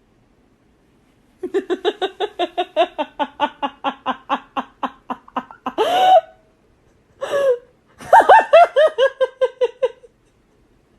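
A person laughing hard in fast, high-pitched pulses of about six a second, breaking into a squeal about six seconds in, then another bout of laughter falling in pitch.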